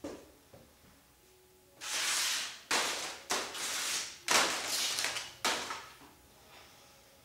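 Crumpled paper balls crackling and rustling as hands gather and sweep them across a table, in about five loud bursts, each starting sharply, over some four seconds.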